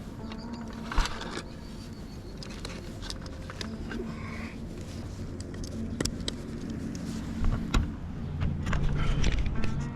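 A vehicle engine running steadily with a low hum, a few sharp clicks over it, and a louder low rumble near the end.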